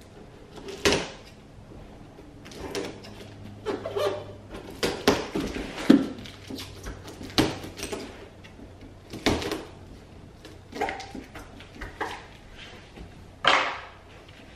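A knife cutting the packing tape along the top of a tall cardboard box: a run of irregular scrapes and rips, with stronger ones about a second in, around six and seven seconds, around nine seconds, and near the end.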